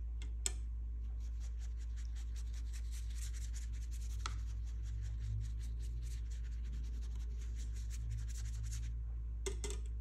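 A paintbrush making many quick, short scratchy strokes on watercolour paper, with a sharp tap about half a second in and a couple more near the end, over a steady low hum.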